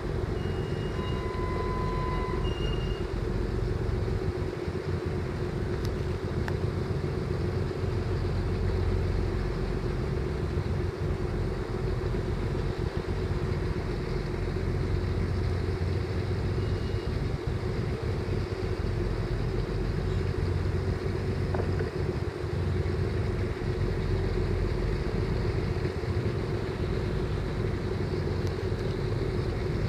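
Ship's engines running with a steady drone and a constant mid-pitched hum over a low, uneven rumble. A few brief high tones sound about a second or two in.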